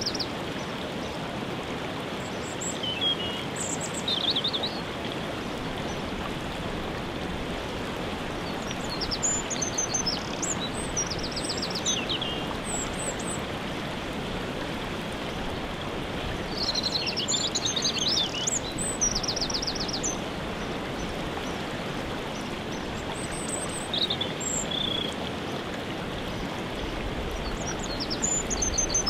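Steady rush of a waterfall, with songbirds singing short, high chirping phrases every few seconds over it.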